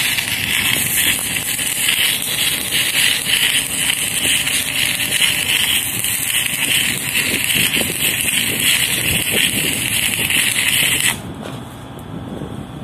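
Stick (arc) welding with a Kobelco electrode: the arc crackles and sizzles steadily as a steel grating step is welded into a ladder frame, then stops about eleven seconds in.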